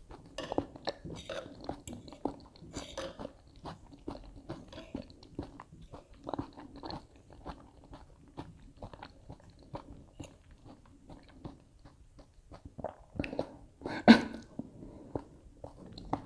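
A person chewing and crunching food close to the microphone, with many small irregular crunches and mouth clicks. One louder, sharper sound comes about two seconds before the end.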